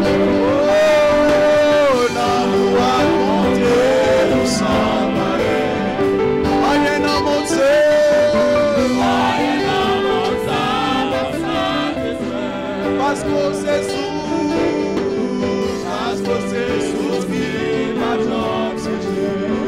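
A man and a woman singing a gospel hymn together into microphones, with long-held notes, over steady instrumental accompaniment.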